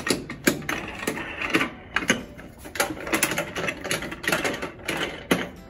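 Star-knob lid clamps on a Smokaroma stainless steel pressure smoker being swung into their brackets and spun tight by hand to seal the lid: a run of irregular metal clicks and rattles.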